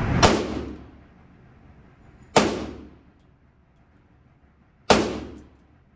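Three pistol shots from a Ruger-57 in 5.7×28mm, fired slowly about two and a half seconds apart, each with a short echoing ring in an indoor range.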